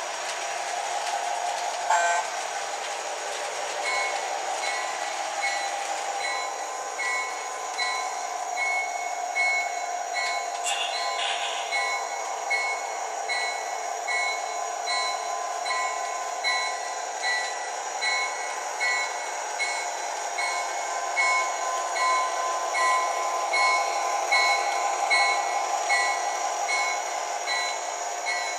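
Sound system of O gauge LionChief Plus model locomotives: a locomotive bell ringing steadily and evenly over the hum of the train running on the track, with a brief loud tone about two seconds in.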